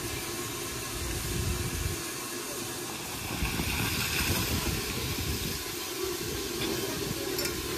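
Water gushing from a railway water column's spout onto the platform drain, the rush growing louder about three and a half seconds in. Underneath is the steady hiss of the Austerity 0-6-0 steam locomotive standing at the column.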